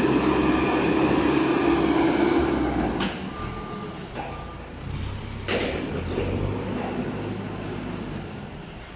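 Caterpillar 432E backhoe loader's diesel engine running under load as its front bucket pushes and spreads corn stalks, louder for the first three seconds, then easing off. A short reversing beeper sounds about three and a half seconds in, with a couple of brief knocks.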